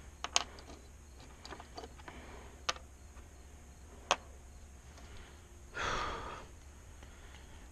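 Scattered light clicks and taps of tools and parts being handled, with a breathy sigh about six seconds in, over a steady low hum.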